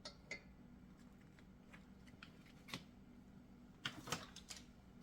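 Faint, scattered clicks and light taps of brake parts and tools being handled while the caliper slides are greased, with a cluster of sharper clicks about four seconds in, over a low steady hum.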